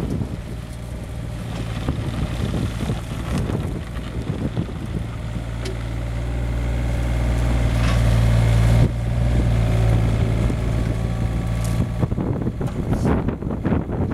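Hyundai Robex 35Z-7 mini excavator's diesel engine running under hydraulic load as the boom, arm and bucket move, growing louder over several seconds and then dropping suddenly about nine seconds in. Wind buffets the microphone.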